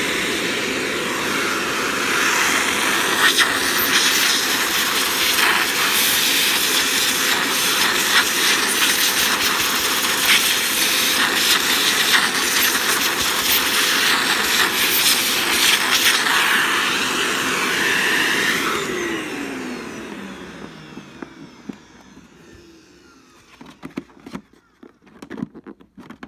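Hoover WindTunnel bagless canister vacuum running with a steady rush of air, then shutting off about nineteen seconds in, its motor winding down in a falling whine. A few clicks of plastic parts being handled near the end.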